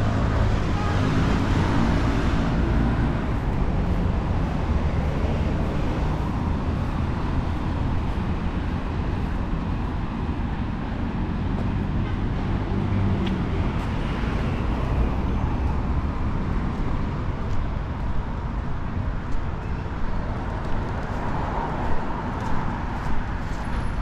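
City street traffic: a steady low rumble of engines and tyres, with several cars swelling past in turn.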